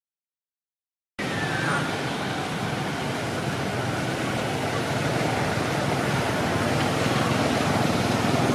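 A second of silence, then a steady rushing outdoor background noise starts abruptly and carries on. Just after it starts there is a faint, short, falling squeak.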